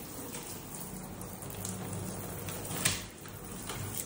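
Hand shower spraying water into a bathtub at a middling flow, a steady hiss, with a sharp knock about three seconds in.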